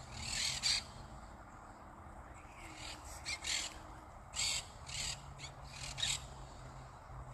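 Osprey calling: a series of short, high-pitched calls in irregular bursts.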